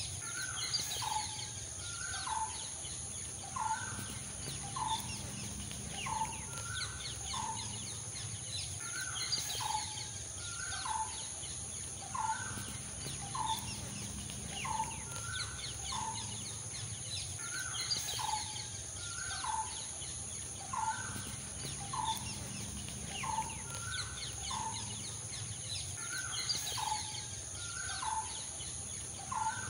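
Birds calling: short calls repeated about once a second, with faint higher chirping behind them.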